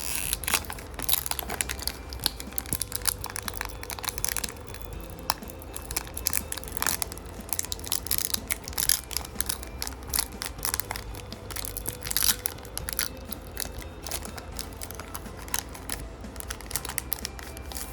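Plastic booster-pack wrapper crinkling and tearing as it is opened, with irregular sharp crackles as the trading cards inside are handled.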